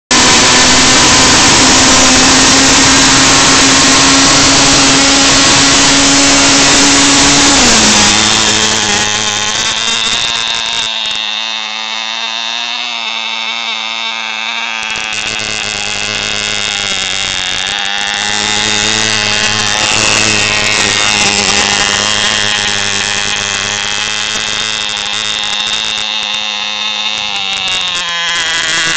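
Cox toy dune buggy's tiny .049 two-stroke glow engine running at a high, steady buzz, loud and close at first. About eight seconds in its pitch drops a little and it grows fainter as the buggy runs across the snow, swelling and fading slightly after that.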